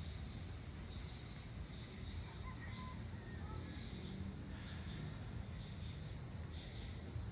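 Evening insects: crickets chirping in repeated pulses over a steady high-pitched insect trill, with a low steady background rumble.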